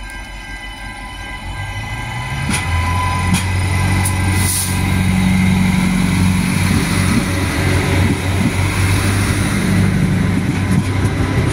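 Adelaide Metro 3100-class diesel railcar pulling away from the platform. Its engine picks up about two seconds in and then runs with a steady low drone as the car rolls past, with a few sharp clicks early in the pull-away.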